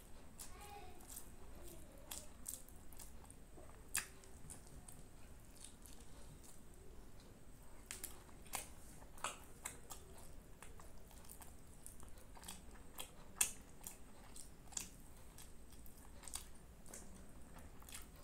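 A person chewing and biting mouthfuls of egg fried rice and chicken close to the microphone. Scattered short sharp clicks run through the chewing, the loudest about four seconds in and again about thirteen seconds in.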